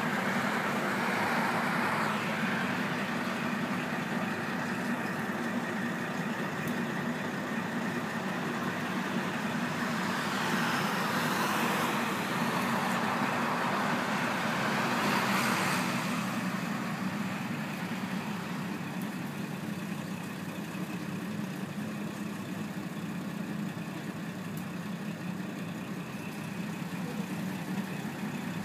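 KiHa 48 diesel railcar's engine idling steadily while the railcar stands still. A road vehicle passes outside, swelling and fading around the middle.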